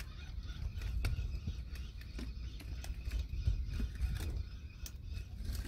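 Wind buffeting the microphone as a steady, uneven low rumble, with scattered faint clicks and ticks over it.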